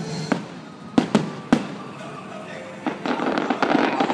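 Aerial fireworks bursting: four sharp bangs in the first second and a half, then from about three seconds in a dense run of rapid popping.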